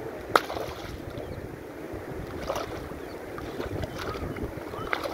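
Lake water splashing as a large fish netted in the shallows thrashes and is handled, with one sharp slap of water about half a second in and a few softer splashes after. Wind rumbles on the microphone throughout.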